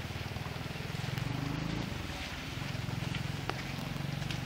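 A motor engine running steadily with a low, fast, even pulse, and a single sharp click about three and a half seconds in.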